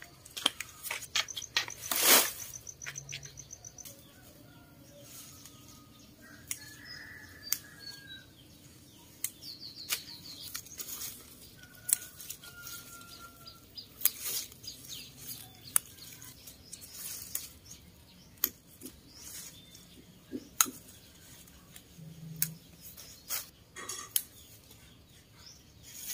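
Irregular crisp snaps and leafy rustling as tender sweet potato shoots are broken off by hand, the loudest snap about two seconds in. Small birds chirp and trill in the background.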